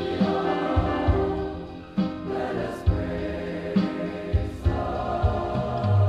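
Large mixed choir singing a gospel song, accompanied by piano and a drum kit that keeps a beat of low thumps with occasional cymbal-like hits.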